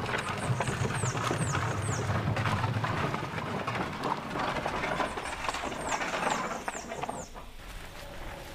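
Wooden farm wagon rolling and rattling, with a low rumble for the first few seconds and many small knocks. Short high falling squeaks come in two quick runs of four.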